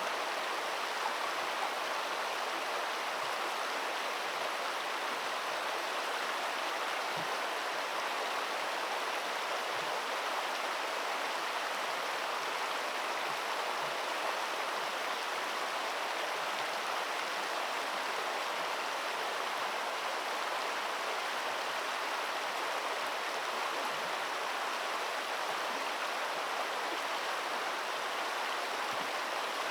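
Flowing water rushing steadily, an even unbroken wash of stream noise.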